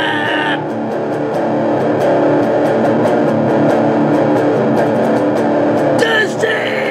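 Distorted electric guitar playing a sustained metal riff. A sung vocal line ends about half a second in and comes back near the end.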